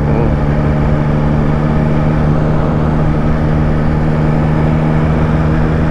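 Motorcycle engine running at a steady cruising speed, with wind and road noise, picked up by a helmet-mounted camera microphone.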